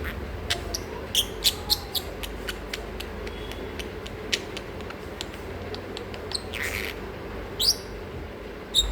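Masked lovebird chirping and squeaking: many short, sharp, high chirps at irregular intervals, with a few louder squawks that slide down in pitch near the end.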